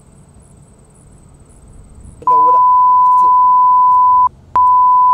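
A loud, steady censor bleep tone that starts abruptly a little over two seconds in, breaks off briefly about four seconds in and then comes back, blanking out spoken words. Before it there is only faint background.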